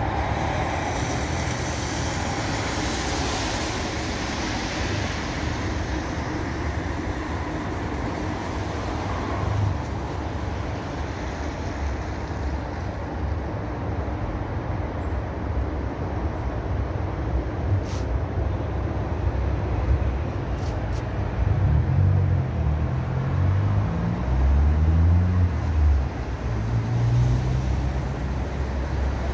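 Steady wash of rain and road traffic on a wet street, with a deep low rumble throughout. About 22 seconds in, a vehicle's engine passes, rising in pitch.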